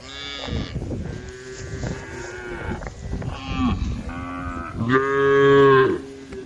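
Several cows mooing, their calls overlapping one after another, with the loudest and longest moo, about a second, near the end.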